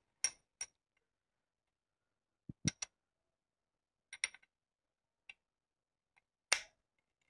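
Sharp metallic clicks and clinks of a steel washer plate and bolt being handled and seated against the timing idler gear of a Mitsubishi 4D35 diesel engine. They come in a few small clusters, the loudest one near the end.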